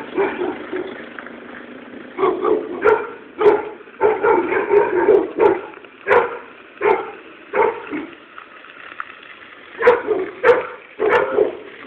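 A dog barking repeatedly, in runs of several sharp barks with short pauses between, with a longer pause of about two seconds shortly before the last run.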